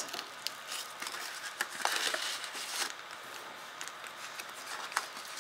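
Paper and cardstock rustling, with light taps and clicks, as a bundle of small cardstock punch-outs is handled and slid into a paper envelope pocket; the rustle is loudest about two seconds in.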